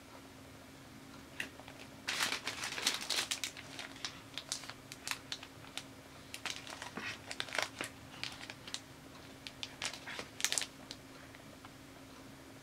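Clear plastic packaging sleeve around a wallet strap crinkling in the hands as it is handled and opened, in irregular crackles starting about two seconds in and dying away a couple of seconds before the end.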